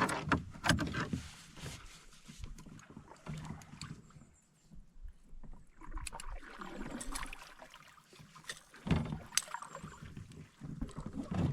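A canoe on the water: knocks and bumps against the hull with water noise, in uneven bursts, with a short lull about four to five seconds in.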